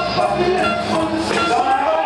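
A record playing loud over a sound system, with a vocal over the music.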